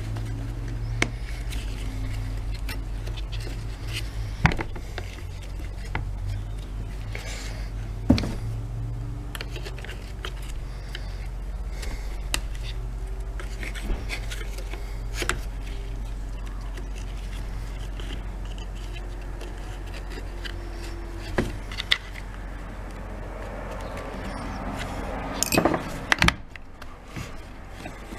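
Hand work on small tool parts: scattered clicks, knocks and scrapes of parts and tools being handled, over a steady low hum.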